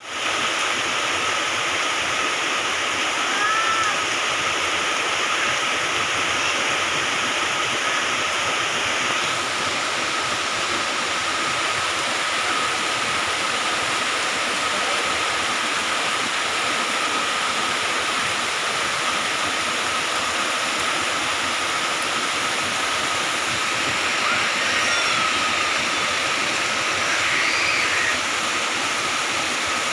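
Moderate to heavy rain falling steadily, a dense even hiss.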